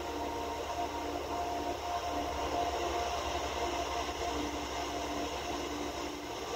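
Soft, soothing background music of long held notes that change slowly, over a steady hiss and low hum.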